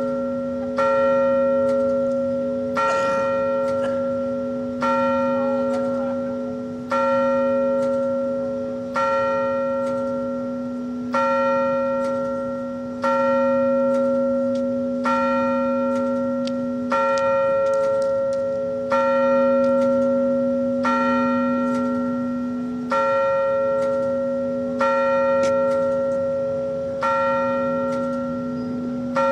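A single large bell tolling slowly, struck about once every two seconds at the same pitch. Each stroke rings on and is still sounding when the next one lands.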